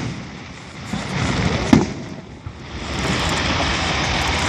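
Fireworks display: one sharp bang a little under two seconds in, between stretches of steady rushing noise.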